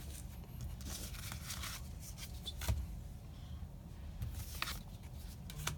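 Foil wrapper of a Magic: The Gathering booster pack being torn open and crinkled, in several short bursts with a few sharp clicks.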